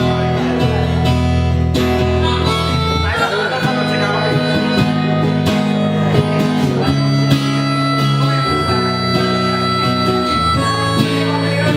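Live band playing an instrumental break: a harmonica solo of long held notes over strummed acoustic guitar.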